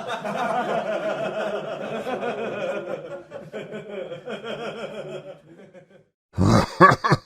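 Laughter sound effect: people laughing, dying away about six seconds in. Near the end a short, loud burst from the next clip begins, with heavy low thumps.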